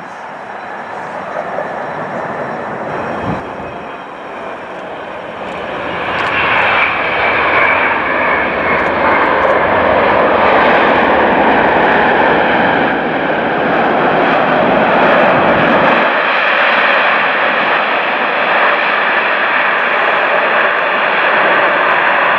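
Boeing 777-300ER's GE90 turbofan engines running on the runway: a steady jet roar with a whine in it. It swells loud about five seconds in and then holds.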